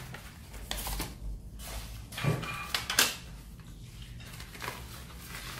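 Brown wrapping paper crinkling and rustling as food packets are unwrapped by hand, in a run of short crackles with the loudest about three seconds in. A few light clinks of a spoon and china dishes mixed in.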